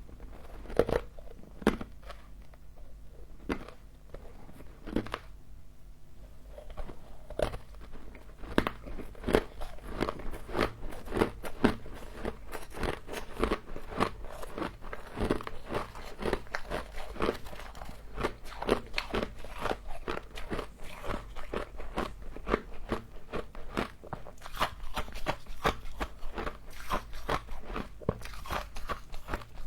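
Close-up crunching of humidifier frost being bitten and chewed. A few separate crunches at first, then rapid, continuous crunching from about eight seconds in.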